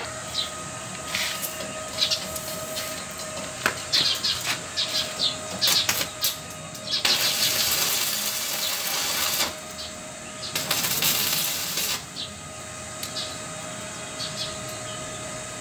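Electric arc welding: the arc crackles and hisses in bursts, the two longest, of a couple of seconds each, in the second half, over a steady hum. Birds chirp in the background.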